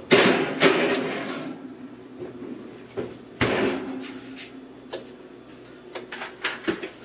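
Off-screen kitchen clatter: a sharp knock just after the start and another about three and a half seconds in, each trailing off over about a second, with a few light clicks between them and near the end.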